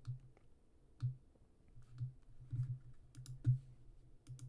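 Computer keyboard clicking faintly, about seven soft taps and sharper clicks at uneven intervals.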